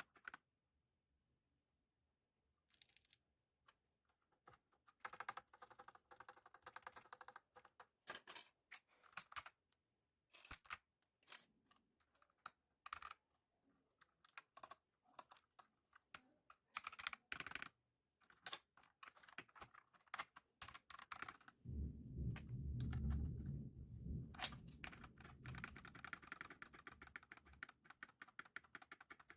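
Typing on a mechanical keyboard with Akko CS Lavender Purple tactile switches under PBT pudding keycaps: scattered single keystrokes and runs of rapid typing. A low rumble lasts a few seconds about three-quarters of the way through.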